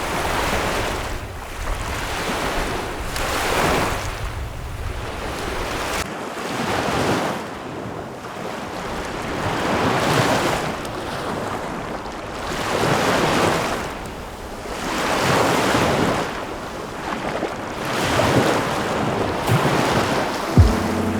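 Small lake waves washing onto the shore in slow swells every two to three seconds. Wind rumbles on the microphone for about the first six seconds.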